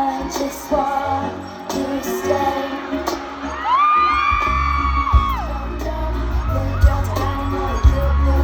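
Pop song with singing over a stadium sound system during a sound check. About four seconds in, a high held vocal cry rises and holds for under two seconds as a heavy bass beat comes in and continues.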